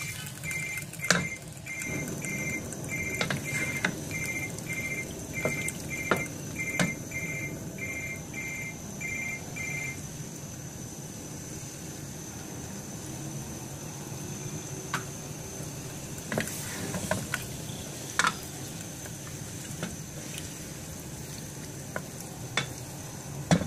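Chicken curry sizzling and bubbling in a metal karahi as a ladle stirs it, with scattered knocks and scrapes of the ladle against the pan. A rapid, high two-note pipping repeats through the first ten seconds.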